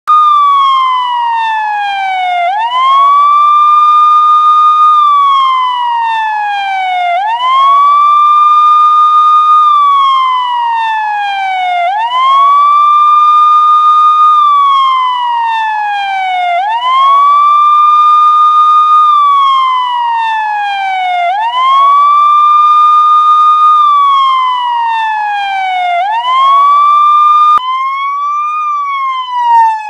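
UK police siren sounding a wail: the pitch jumps up quickly, holds, then slides slowly down, repeating about every five seconds. Near the end it cuts abruptly to a different siren pattern with even up-and-down sweeps.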